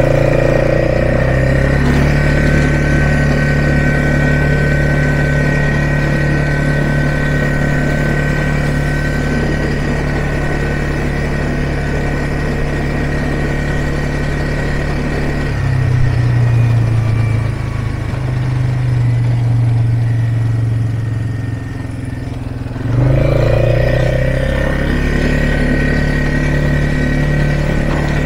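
ATV engine running steadily under way. Its note drops a little past halfway, then picks up again with more throttle about three-quarters of the way through.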